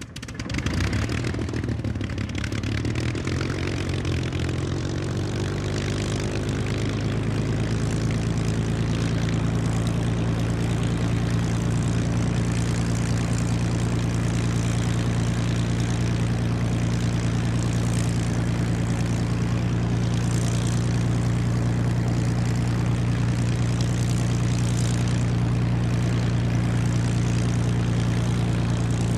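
Rolls-Royce Merlin V12 aero engine and propeller running at a steady speed, a deep even drone that comes up quickly in the first second and then holds.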